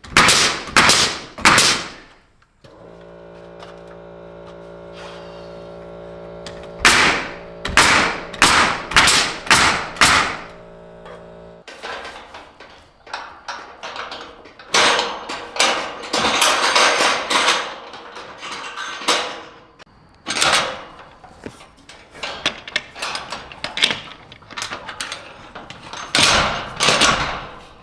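Nails being driven into a wooden barn cross member: runs of sharp, loud strikes, several in quick succession for each nail. A steady motor hum runs under the strikes for about nine seconds in the first half.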